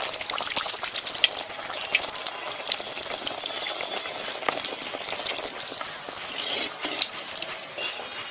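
Hot oil sizzling and crackling as a ball of tel pitha (rice-flour and jaggery batter) deep-fries in an earthenware kadai, with light clicks and scrapes of a wire spider skimmer against the pot as the ball is turned.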